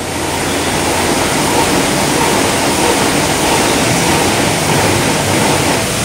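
Steady rushing hiss of a digital water curtain, with water released from thousands of valves falling 24 feet into a collecting trough. It fades in over the first second, then holds even.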